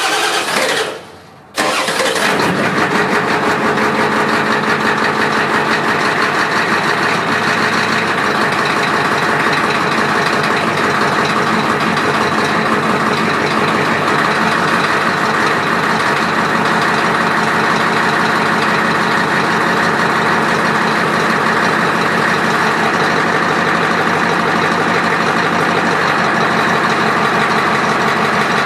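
Dump truck's engine starting up about a second and a half in, then running steadily at idle.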